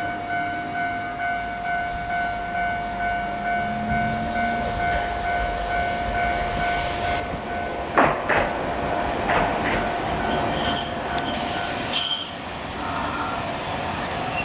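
Level-crossing warning bell ringing in steady rapid pulses, then stopping about halfway through. A Hankai Tramway Mo501-type tram rolls in with clattering wheel knocks, then its wheels and brakes squeal in a high tone for about two seconds and cut off as it stops near the end.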